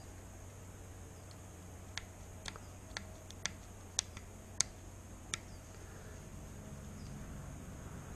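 Small sharp clicks, about seven over three and a half seconds, as a scalpel trims the excess of a crankshaft rope seal, over a steady low hum.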